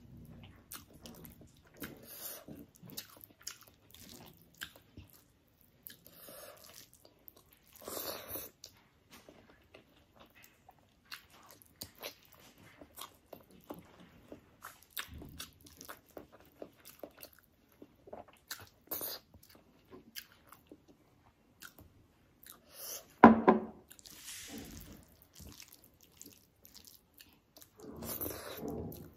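Close-up eating sounds of a person chewing a mouthful of rice and egg curry: wet chewing and frequent short lip smacks, with one louder sharp mouth noise about two-thirds of the way through.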